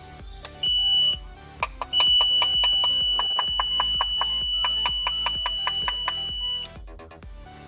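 Boat engine's warning alarm giving one steady high beep, a short one at first and then one held for about five seconds. It signals that the fuel pump is not running. Background music with a steady beat plays throughout.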